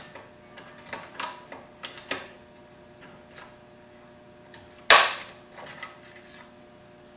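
Dipstick of a Craftsman push mower being handled as the oil level is checked: a few light plastic-and-metal clicks, one sharp knock about five seconds in, then a few softer clicks.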